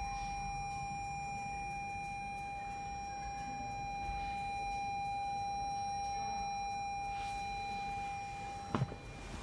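A steady electronic beeper tone, one unchanging pitch, holds and then cuts off near the end, followed at once by a short knock.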